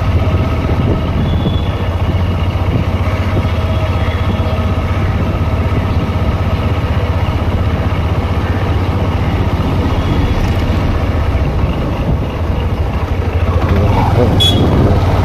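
Honda SP125's single-cylinder four-stroke engine running steadily while riding, with wind rushing past. It gets a little louder near the end, and there is one short sharp click.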